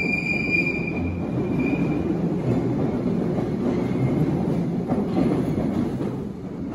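Bakerloo line tube train pulling out and running into the tunnel: a steady rumble of wheels on rail. A high wheel squeal fades out in the first two seconds.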